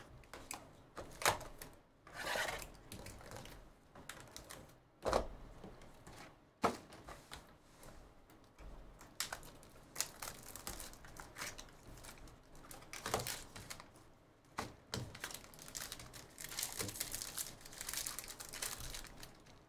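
Hands handling card-box packaging, with irregular rustling, crinkling and sharp crackles of cardboard and wrapper. Near the end there is a denser crackle as a foil trading-card pack is torn open.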